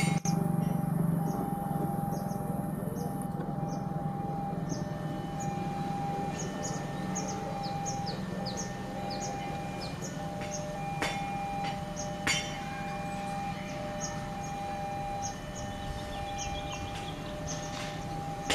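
Railway level-crossing alarm sounding a steady repeating tone while a train's low rumble fades away in the first second or two; a couple of sharp knocks come about halfway through.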